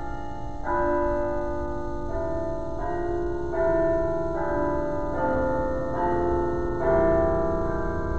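Slow instrumental music of held chords, each moving to the next about once a second, over a low steady hum.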